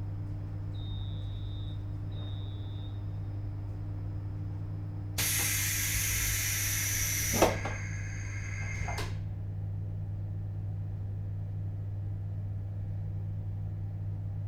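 JR Hokkaido 721-series electric train standing still, its electrical equipment giving a steady low hum. Two short high beeps come early. About five seconds in, a loud hiss of about two seconds ends in a sharp knock, followed by fading ringing tones.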